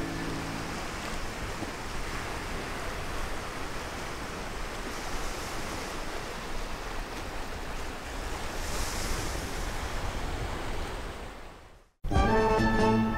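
Small sea waves washing against a rocky shore, a steady rush of noise that fades out about a second before the end.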